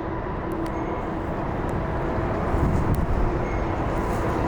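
Jet airliner engines running, a steady rumble with faint steady whining tones that slowly grows louder.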